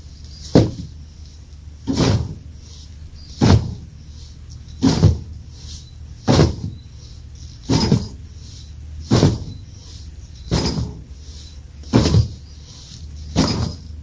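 Heavy battle ropes slammed down with both arms, ten sharp smacks at an even pace about one and a half seconds apart.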